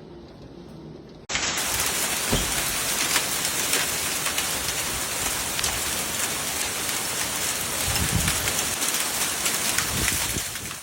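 Heavy rain pouring down in a thunderstorm, a steady loud hiss of drops with scattered sharp ticks; it starts abruptly about a second in, with a low thud about two seconds in.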